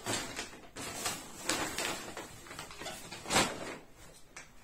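Clothes and bags rustling as they are handled and packed into a travel bag, with a sharp knock about three and a half seconds in.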